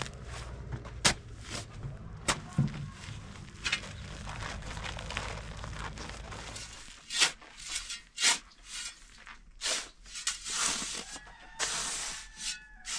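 A steel shovel scraping and scooping through a dry sand and cement mix. A few sharp knocks come in the first half, and from about halfway on there is a run of separate rasping scrapes, one to each stroke of the shovel.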